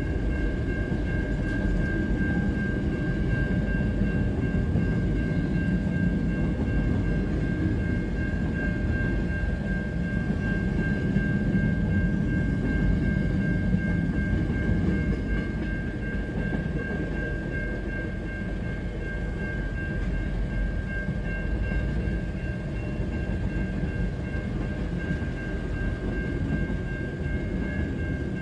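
Freight train rolling through a level crossing: a continuous low rumble of wagons on the rails, with a steady high-pitched ringing tone above it.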